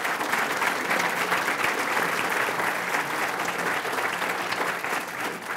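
Audience applauding: a dense, steady clapping of many hands that begins to die away near the end.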